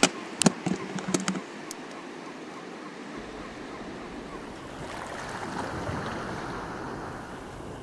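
A few sharp knocks in the first second and a half, then surf washing over shore rocks, swelling about five to six seconds in.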